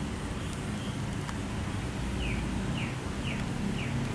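A bird calling four short, falling notes about half a second apart, starting about two seconds in, over a steady low rumble.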